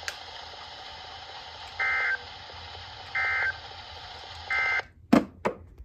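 Emergency Alert System end-of-message code: three short bursts of warbling data tones (the 'NNNN' signal), a little over a second apart, over steady radio hiss. Near the end the hiss cuts off and a few sharp clicks follow.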